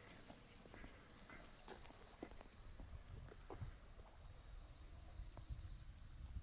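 Faint, irregular footsteps of a dog walk, under a steady high-pitched insect call that runs on without a break.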